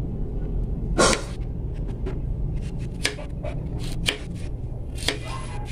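Kitchen knife slicing chayote on a plastic cutting board: sharp strokes about once a second, the one about a second in the loudest, over a steady low hum.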